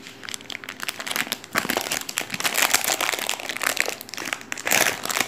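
Clear plastic packaging crinkling and crackling in irregular bursts as hands handle it, with a loud burst near the end.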